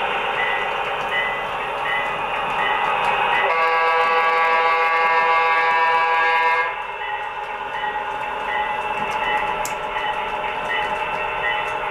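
HO scale EMD F3A model diesel's DCC sound playing through its onboard speaker: the engine running over a steady rumble of the train, with a high tone pulsing about twice a second. About three and a half seconds in, a long horn blast sounds for about three seconds and then stops.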